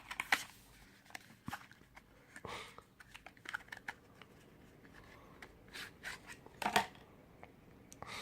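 Phone packaging and parts being handled during an unboxing: irregular clicks, taps and short rustling scrapes, with a louder click just after the start and another about two-thirds of the way through.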